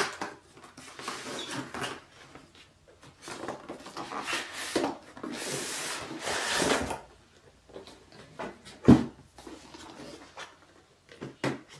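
Cardboard laptop shipping box being opened and handled: cardboard rubbing and scraping in bursts, with a longer scrape in the middle. A single sharp knock about nine seconds in, then a few light clicks near the end.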